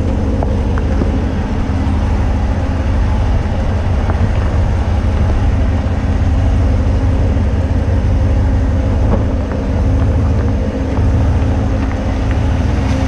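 2019 Ram 1500 Rebel pickup driving slowly on an off-road trail, its engine and drivetrain giving a steady low rumble.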